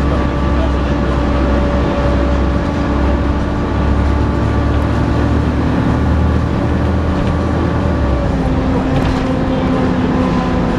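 Volvo B7TL bus's six-cylinder diesel working hard under acceleration, with a steady vacuum-cleaner-like 'hoover' whine over the engine rumble. About eight seconds in the whine drops to a lower pitch.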